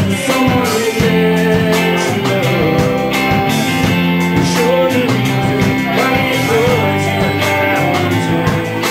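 Rock band playing live: electric guitars and bass holding steady chords under a wavering lead melody, with drums keeping time.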